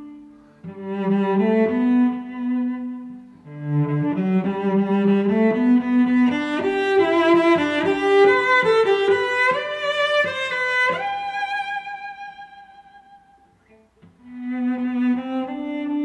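Slow background music of bowed strings, a low cello-like line carrying the melody. A long held note fades away near the end, and the strings come back in shortly after.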